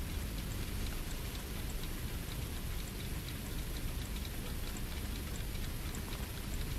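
Steady rain-like hiss with faint high ticks, a little under two a second.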